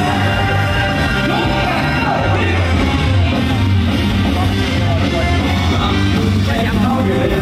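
Upbeat rock-style baseball cheer song with singing and a steady beat, played loud over the ballpark's sound system.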